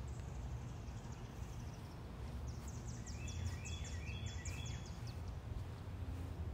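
A small bird sings a quick run of short, falling chirps for about two seconds midway, over a low steady outdoor rumble.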